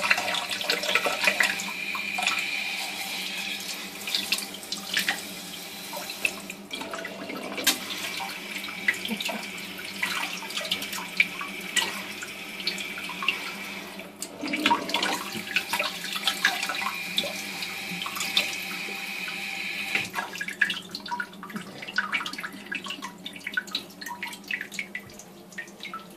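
Water jet from a National electronic bidet toilet seat's wash nozzle spraying into a glass tumbler held over the bowl, splashing and spattering steadily. The spray eases off over the last few seconds.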